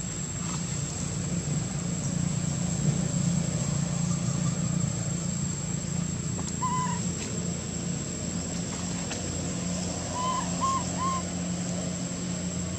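Outdoor ambience with a steady low hum and a thin steady high whine. Over it come short arched animal calls: one about seven seconds in, then three in quick succession near the end.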